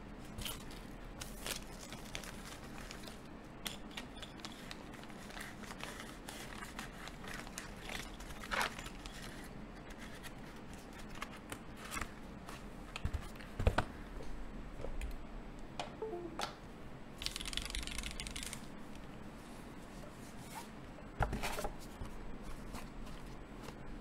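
Hands handling small objects and packaging at a desk: scattered clicks, taps and scrapes, with a longer rustle about 17 seconds in and a few louder knocks.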